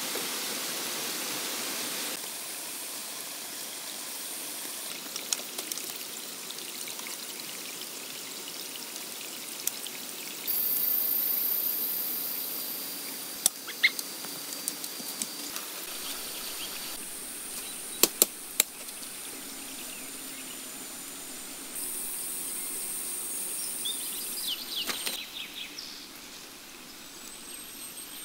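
Tropical forest ambience that changes abruptly several times: a stream rushing at first, then steady high insect buzzing with a few bird calls. A few sharp snaps or knocks come around the middle.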